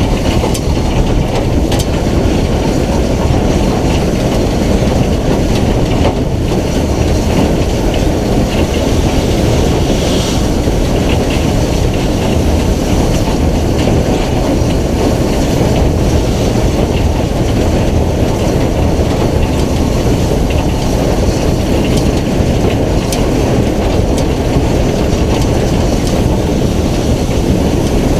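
BR Standard Class 9F 2-10-0 steam locomotive running along the line, heard as a steady heavy rumble through wind buffeting a camera mounted on its side.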